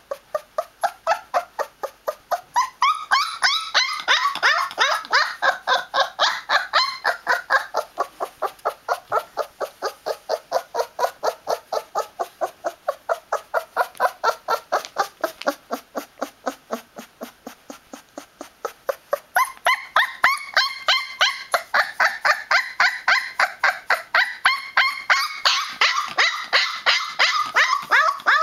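A 20-day-old Newfoundland puppy crying in protest, a fast, unbroken string of high yelps about three a second. For a stretch in the middle the cries drop lower and softer, then turn high and loud again.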